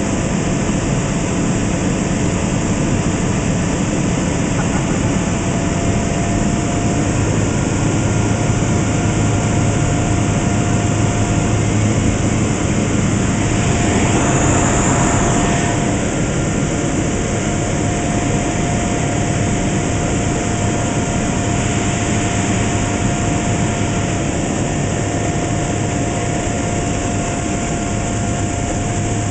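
Light aircraft's piston engine and propeller droning steadily, heard inside the cockpit. The noise swells briefly about halfway through.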